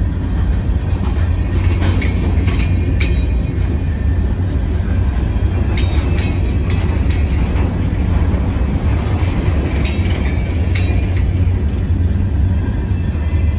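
Freight train's open-top hopper cars and then tank cars rolling past: a loud, steady deep rumble of wheels on rail, with scattered short, high-pitched clicks and squeals.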